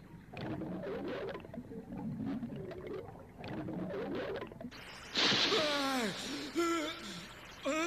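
Cartoon underwater sound effect: muffled bubbling and gurgling. About five seconds in comes a loud splash as a swimmer breaks the surface, followed by a falling, sliding tone and a few short stepped tones.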